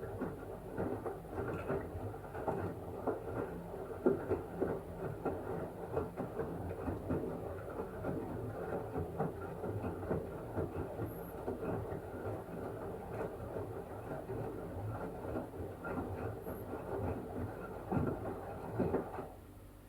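LG washing machine drum turning a wet blanket during the wash: an uneven churning with many soft knocks, which stops just before the end as the drum comes to rest.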